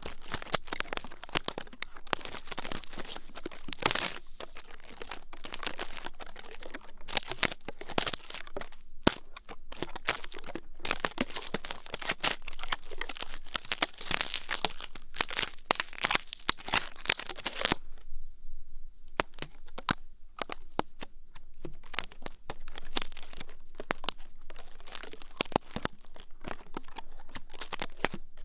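Close-up ear-cleaning ASMR: dense, irregular crackling, scratching and crinkling of tools rubbing close to the microphone, with a short lull about two-thirds of the way through.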